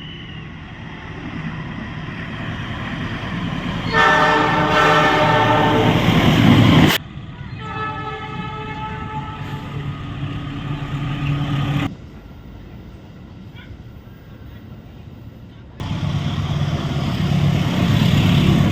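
Trains passing at speed with long locomotive horn blasts, in short clips cut together. A steady rail rumble becomes a loud multi-tone horn chord about four seconds in, which cuts off abruptly at about seven seconds; a second horn in a different pitch sounds until about twelve seconds. After a quieter stretch, the loud rumble of another passing train starts suddenly at about sixteen seconds.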